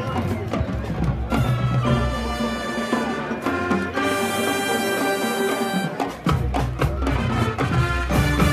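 Marching band playing a rock arrangement: brass horns over drums and percussion, with a short break about six seconds in before a loud held passage.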